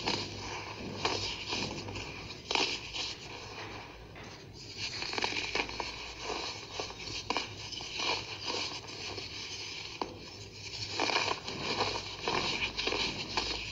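Clumps of pink-tinted baking soda crushed and crumbled between fingers and rubbed against a hard surface: irregular crunching and crackling with soft scraping of the powder, over a faint low hum.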